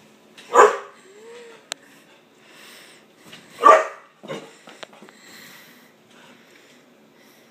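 Dog barking at a fly it is trying to catch: two sharp barks about three seconds apart, the second followed by a shorter, lower bark. Fainter rustling and a single click come between the barks.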